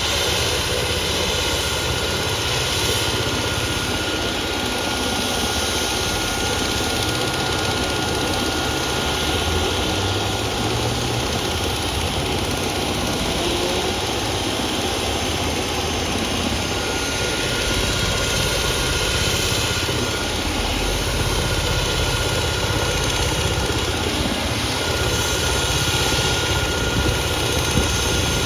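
Medical helicopter's turbine engine and rotor running steadily, a constant whine over a dense low churn.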